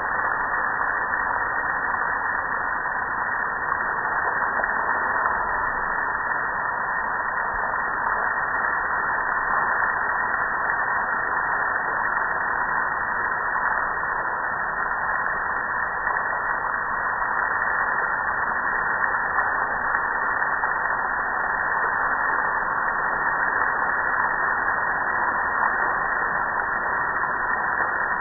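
Water spraying onto and streaming off a soap-covered gas grill, making a steady, unbroken rush.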